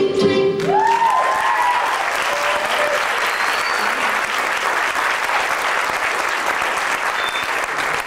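Audience clapping and cheering after a song's final held note cuts off under a second in; a few whoops ring out over the applause just after the music stops.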